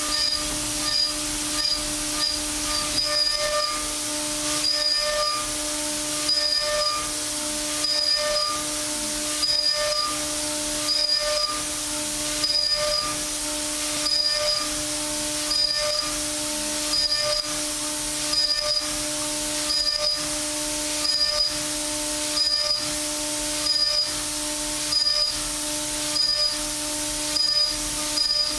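Kennametal Harvi III end mill in a DMG MORI DMU 50 machining center, high-speed milling 1018 steel at 1,000 inches per minute under coolant. A steady whine of several tones over a constant hiss, swelling in loudness regularly about every second and a half as the cutter works through repeated passes.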